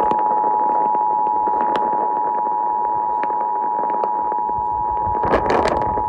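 Emergency Alert System attention signal: two steady tones (853 and 960 Hz) sounding together without a break, announcing the tornado warning that follows. It comes through a hissy radio reception with scattered clicks and a short crackle near the end.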